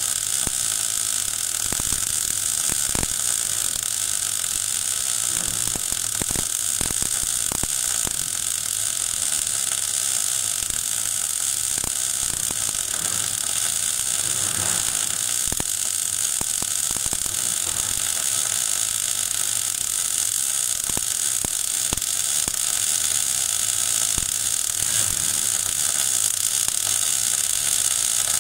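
MAG (gas metal arc) welding arc running steadily on a vertical-up butt weld in 12 mm steel plate: a continuous frying crackle peppered with many small spatter clicks.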